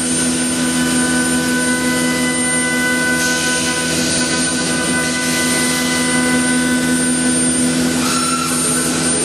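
CNC woodworking machine running steadily, a constant mechanical whine with several held tones over a broad rushing noise. Brief higher hissing surges come about three seconds in and again near the end.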